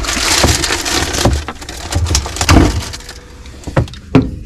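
Rummaging in a boat's icebox-converted fridge: a dense rustling and clattering of items for about two and a half seconds, then a few separate knocks.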